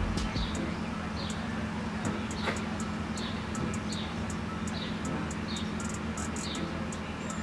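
Nissan GT-R R35's twin-turbo V6 idling steadily while it warms up. A short high chirp repeats about once a second over the engine's hum.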